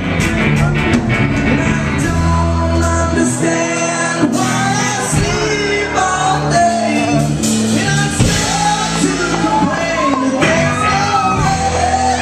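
Live rock band playing loud on drum kit and guitars, with a lead singer singing the melody over held bass notes and cymbals.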